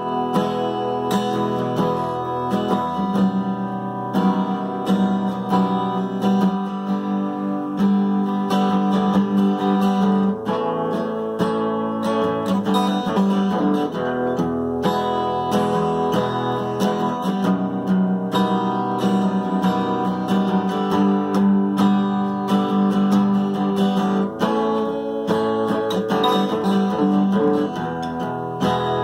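Craviola, a steel-string acoustic guitar, played as a solo instrument: a continuous run of plucked notes and chords.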